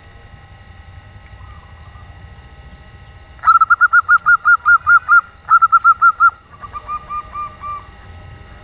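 Female zebra dove (perkutut) giving a fast 'nyelir' call: a quick run of about five cooing notes a second, then a shorter second run, followed by a softer, slightly lower run of notes. It is the female's call used to lure males.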